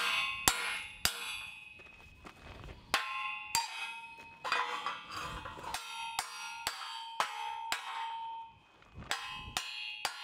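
Ball-peen hammer striking a steel wedge jammed between two steel bars: a series of ringing metallic clangs, about two a second, with a short pause about eight seconds in. The wedge is forcing the slider joint apart to open the gap before welding, so the weld's pull will bring it back to size.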